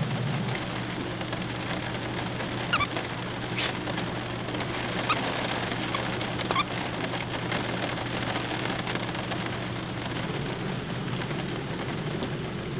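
Steady rain on the molded fiberglass roof of a Scamp 13 travel trailer, heard from inside, with a few louder drops ticking now and then.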